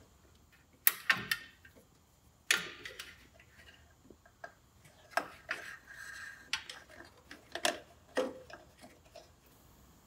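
Wiring harness connectors and wires clicking and rustling against the car body's sheet metal as a bundle is pulled through a small hole. The clicks come at irregular moments, about eight sharp ones in all.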